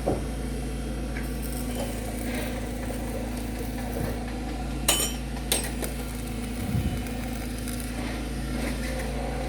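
Steady low machine hum, with a few sharp metallic clinks about halfway through and a dull knock shortly after, from steel being worked at a building site where roof supports are being welded.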